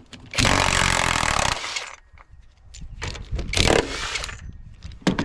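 Handheld power tool run in two short bursts, a loud one of about a second and a quieter one near the middle, with small knocks of parts in between, as a washing machine is taken apart.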